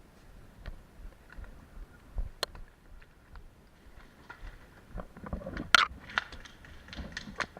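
Airsoft gunfire: a single sharp crack of an airsoft gun a couple of seconds in, then a quick run of sharp cracks and snaps over the last two or three seconds, over a background of rustling movement.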